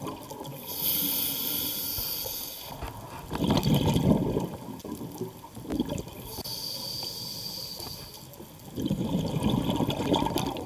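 Scuba diver breathing through a regulator underwater, two full breaths: each inhalation is a steady high hiss of about two seconds from the demand valve, followed by a lower bubbling rush as the exhaled air leaves the exhaust.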